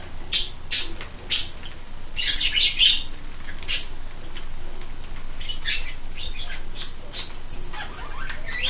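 Plastic Rubik's cube being twisted, with a run of short, irregular high clicks and scrapes as its loose layers turn.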